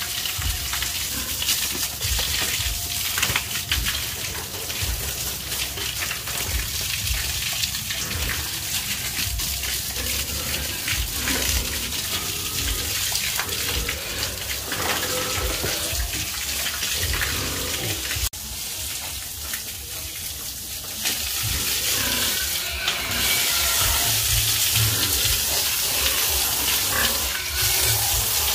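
Water spray hissing and splashing down onto piglets and the wet pen floor. It drops suddenly about two-thirds through, then comes back louder near the end.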